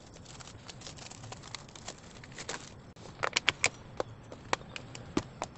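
Thin clear plastic lid of a takeaway food bowl crinkling and clicking as it is pried off, with a quick run of sharper snaps a little past halfway and another near the end.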